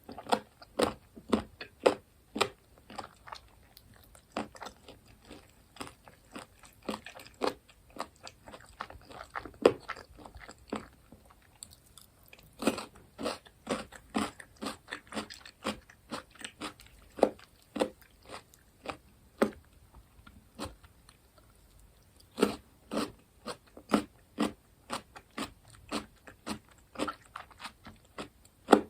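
Crunchy fried food being bitten and chewed close to the microphone: sharp crunches come in runs of two or three a second, with short pauses between mouthfuls.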